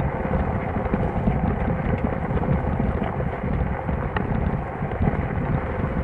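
Steady engine and road rumble inside a jeep's cabin as it drives, with a faint steady hum under it.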